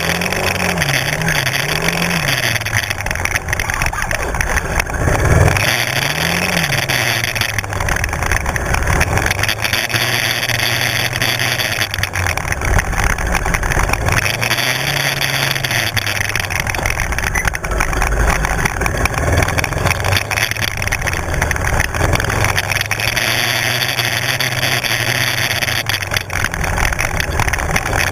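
Kymco 250 sport quad's engine running close up while riding a dirt track. The revs rise and fall with the throttle in the first couple of seconds and again about six seconds in, then hold fairly steady, over constant wind noise.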